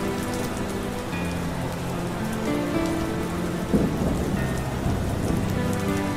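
Recorded rain falling steadily, with a rumble of thunder swelling up about four seconds in, under soft music of long held notes.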